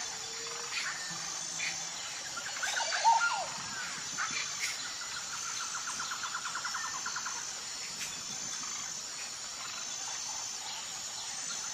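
Steady high insect chorus with birds calling over it: scattered chirps, a louder call about three seconds in, and a fast trill of repeated notes around six seconds.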